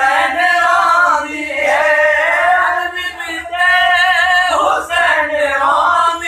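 A man singing a Punjabi devotional verse without instruments, in long ornamented phrases with held, wavering notes and short breaths between them.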